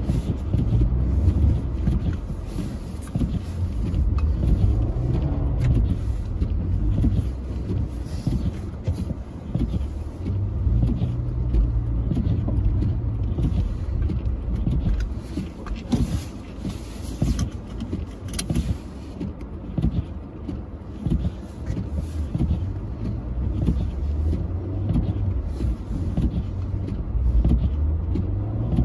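Car engine running with a deep rumble, its revs swelling and easing several times, as when a car is driven up a snowy slope.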